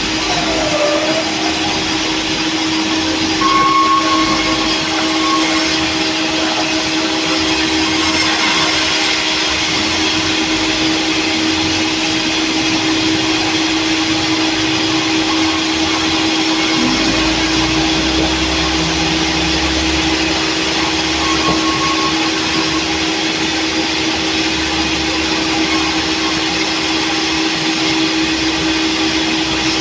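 Sawmill saw running steadily with a constant pitched hum over an even hiss; a deeper rumble joins about halfway through.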